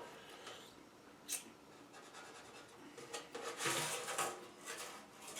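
Quiet handling of a steel duct pipe while measuring and marking it: a single click about a second in, then a short stretch of rubbing and scraping about three and a half seconds in.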